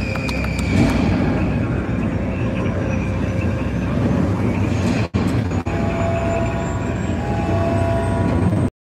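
Loud, steady rumbling sound effects from a reveal film, played over a venue's speakers and heard from the audience. The sound cuts out briefly about five seconds in and again at the end.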